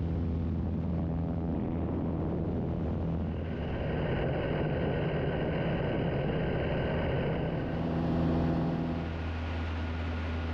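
Single-engine light aircraft's piston engine and propeller droning steadily, heard from the cockpit, while the plane flies a loop. A higher whine joins about a third of the way in and fades again near the end, and the drone swells slightly just after.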